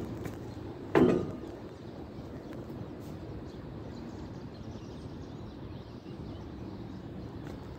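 Steady outdoor background noise, with one short loud thump about a second in.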